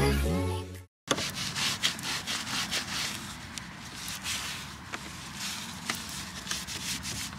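Music stops in the first second, then after a short silent cut a surface is scrubbed by hand: irregular rasping rubbing strokes with small clicks and knocks.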